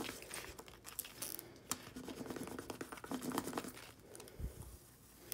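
Crinkling and scratching of clear plastic transfer tape as fingertips rub it down over a vinyl decal on a small plastic cup, with many small clicks.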